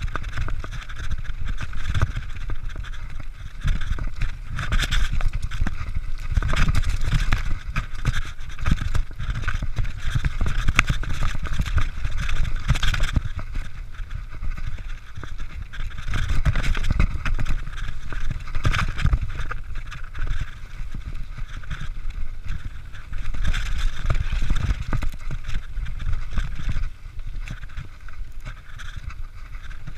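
Mountain bike running fast down a rough dirt and stony singletrack: tyres crunching over loose ground, with the bike rattling and clattering over bumps and wind rumbling on the action-camera microphone.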